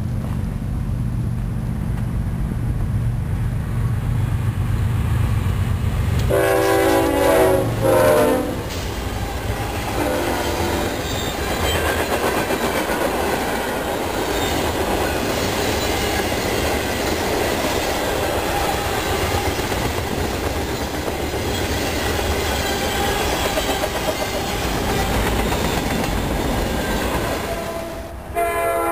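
Diesel freight locomotive rumbling as it approaches, then sounding its multi-tone horn in two blasts about six seconds in. This is followed by the steady rolling rattle of the passing freight cars (tank cars and gondolas) on the rails. Just before the end the rolling noise drops away and another train horn starts.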